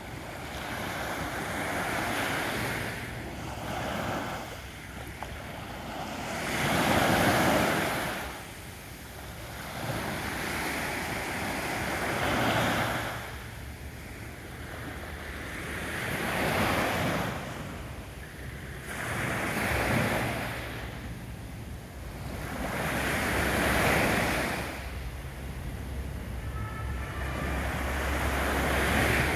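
Small waves of a calm sea breaking and washing up a sandy beach, each surge swelling and fading away, about one every three to four seconds.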